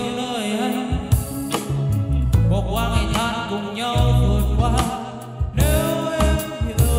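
A man singing a slow song into a Boss QM-71 wireless microphone. His voice is amplified through a Bose S1 Pro+ portable PA speaker over a backing track with a heavy bass line.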